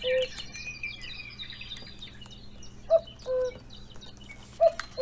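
Common cuckoo calling its two-note 'cuck-oo', the second note lower, three times: at the start, about three seconds in, and near the end. Small birds chirp faintly behind it.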